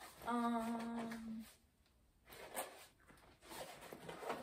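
A girl's short hummed "mmm" held on one steady note for about a second, followed by rustling and handling noise as she rummages in a backpack pocket.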